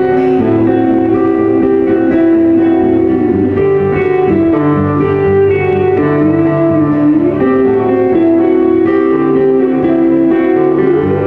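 Live country band playing an instrumental passage: a pedal steel guitar carries a lead of held notes that slide smoothly up and down in pitch over strummed acoustic guitar, bass and drums.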